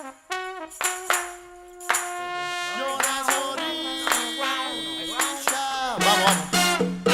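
Music: a melody of held and gliding pitched notes over sharp percussion hits.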